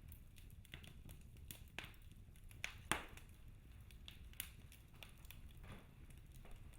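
Wood fire crackling in a fireplace: scattered irregular snaps and pops over a faint low rumble, with one sharper pop about three seconds in.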